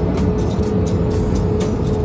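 Background music with a steady beat of sharp ticks, about four a second, over a steady held tone.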